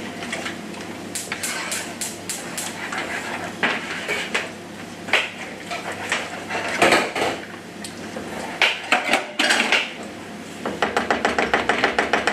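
Wooden spoon stirring chopped tomatoes in a saucepan, scraping and knocking against the pan at irregular intervals, with a quick run of regular knocks near the end.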